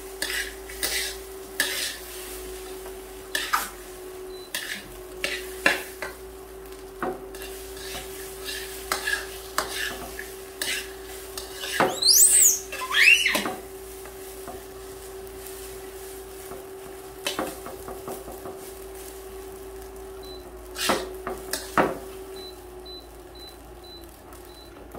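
Metal spatula stirring and scraping fried rice in a steel wok, with frequent clicks against the pan and a light sizzle. About halfway through, a baby monkey gives a couple of short high squeals that rise and fall.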